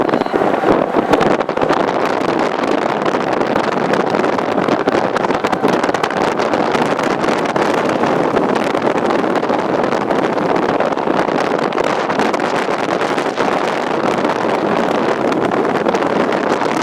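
Strong storm wind buffeting the microphone: a loud, steady rushing noise with no siren tone in it.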